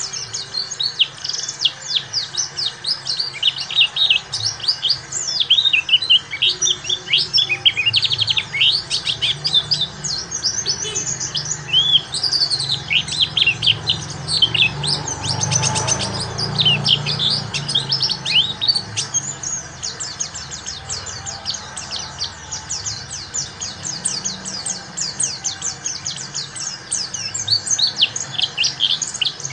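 Pleci (white-eye) song: a fast, unbroken chatter of high chirps and quick downward-sweeping twitters, with a brief rapid trill about halfway through. This is a wild-style 'ngalas' pleci song used as a lure and for teaching.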